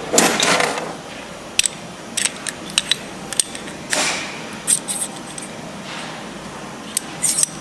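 Metal parts clinking and scraping: fan shaft bearings with locking collars being handled and slid onto a steel shaft, with scattered sharp clicks and a couple of short scrapes.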